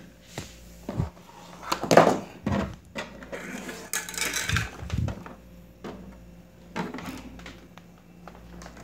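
Handling noises from an opened LED TV being moved about on a table: scattered knocks and clatters, the loudest about two seconds in, and a short scraping rustle around four seconds.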